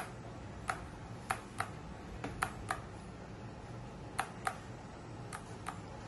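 Small plastic clicks of a radio-control transmitter's buttons and switches being pressed, about ten sharp clicks coming unevenly, some in quick pairs.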